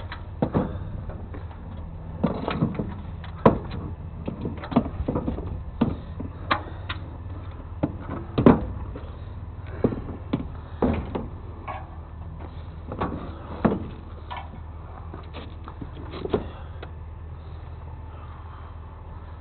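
A vehicle engine idling steadily, with a run of irregular knocks and clatter over it, most of them in the first two-thirds.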